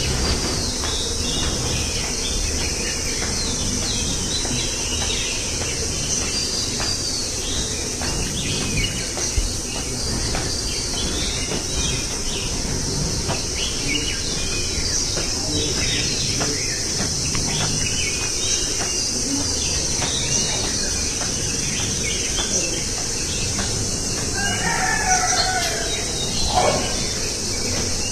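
Village dawn chorus: many small birds chirping over a steady high-pitched insect drone, with a rooster crowing once near the end.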